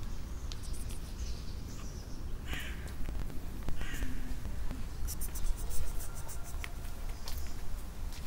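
Outdoor ambience: a steady low wind rumble on the microphone, light scuffing steps, and two short harsh bird calls about a second apart, a little before the middle.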